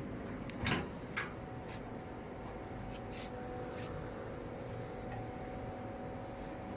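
Steady hum of a fiber laser welding machine, broken by a few short sharp crackles in the first four seconds, the loudest under a second in.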